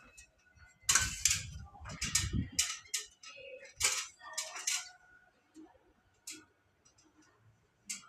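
Handling noise: a run of clicks, knocks and rattles, densest in the first half, thinning to a few single clicks near the end.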